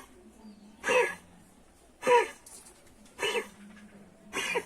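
Puppy coughing, four hoarse hacking coughs about a second apart, the cough of kennel cough (infectious tracheobronchitis) that leaves it struggling to breathe.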